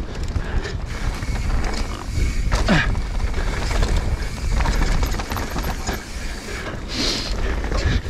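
Mountain bike descending a dirt trail, heard from a camera on the bike or rider: steady wind rumble on the microphone with the tyres and bike rattling and knocking over the dirt and rocks. A short rising squeal sounds about two and a half seconds in.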